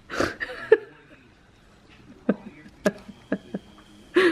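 A short burst of voice, then a few scattered light clicks and taps.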